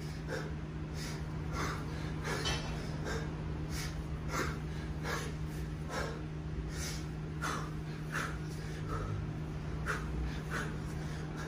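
A man breathing hard while he does repeated kettlebell snatches late in a ten-minute set, one short, forceful breath about every half second to second. A steady low hum runs underneath.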